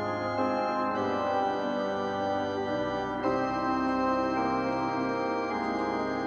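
Music of sustained held chords, changing about a second in and again a little after three seconds.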